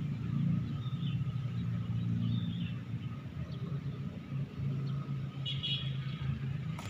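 A low, steady rumble, with small birds chirping a few times.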